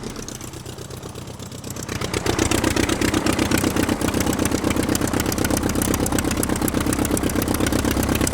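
An engine running with a fast, even pulsing beat; it dips in level for the first two seconds, then rises again and holds steady.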